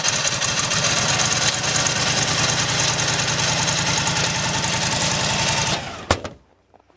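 Starter cranking the cold 992 cc V-twin of a 17 kW Honeywell standby generator at −24 °C, turning it over in a fast, even rhythm without it catching. The cranking cuts off abruptly about six seconds in, followed by a click or two: a failed cold-start attempt.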